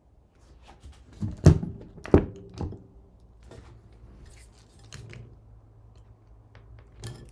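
Handling knocks from an FPV quadcopter being picked up and turned over by hand: two loud thunks about a second and a half and two seconds in, then lighter knocks and clicks.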